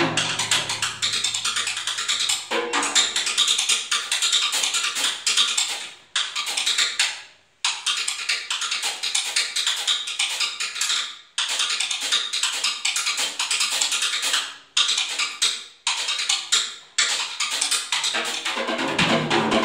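Live drum kit passage in a jazz trio: quick stick strokes on cymbals and drums with several sudden stops. The bass fades out over the first second or two, and the low end comes back in near the end.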